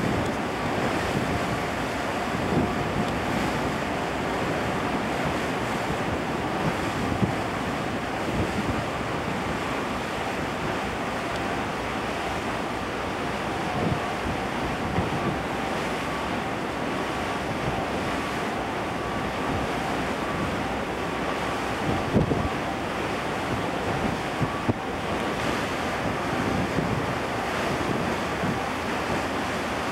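Wind buffeting the microphone over the wash of choppy sea along a moving ship, a steady rushing noise with small gusts, and a faint steady hum underneath.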